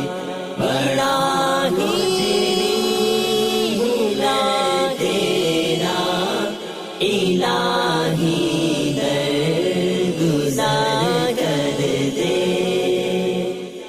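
Devotional chanting in the style of an Islamic nasheed: layered voices holding and gliding through a slow melody, fading out at the very end.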